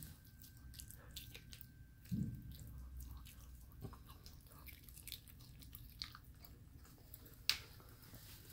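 A six-week-old puppy chewing a crushed raw bone-in chicken wing: faint chewing with a scatter of small clicks, a low thump about two seconds in, and a sharp click near the end.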